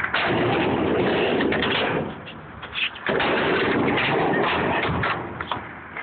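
Skateboard wheels rolling across a metal skate ramp: a loud, noisy rolling sound that dies down twice, about two seconds in and near the end.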